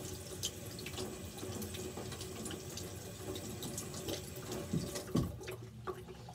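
Tap water running into a stainless steel sink, splashing over gloved hands rinsing a pipe cleaner. A couple of small knocks come near the end, and the running water dies away about five and a half seconds in.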